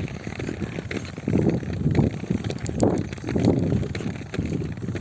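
Roller skate wheels rumbling over pavement, the rumble surging and easing with each push, with small clicks and knocks along the way.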